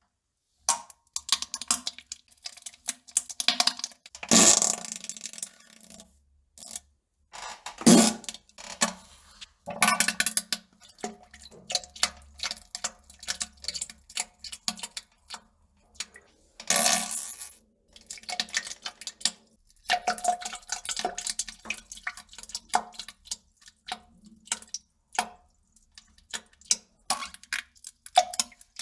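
A long run of human flatulence and sputtering bowel-movement sounds: short, irregular bursts and crackles at uneven intervals, some with a low buzzy pitch, and a few louder blasts.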